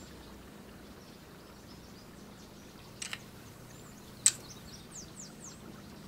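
Quiet outdoor background with faint short bird chirps. About three seconds in comes a quick double click, and a second later a single sharper click: BB guns being handled, loaded and cocked.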